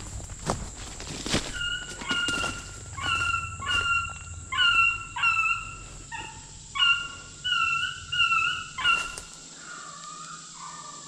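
Beagle baying: about a dozen short, high yelping bays in quick succession, then fainter bays trailing off near the end. Footsteps crunch through brush at the start.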